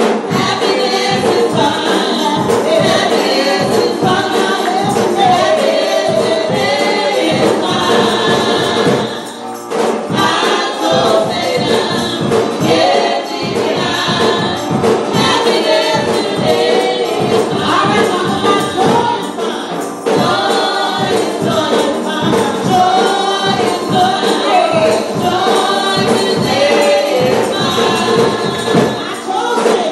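Gospel praise team singing together into microphones over music with a steady beat.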